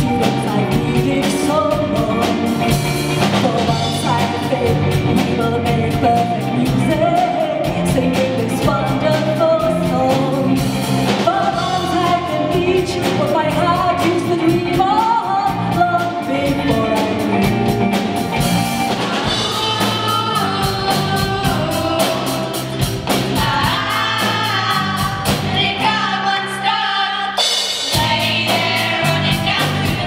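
A live student band playing a song: a lead vocal over drum kit and band accompaniment. Near the end the accompaniment thins out for a moment, then the music carries on.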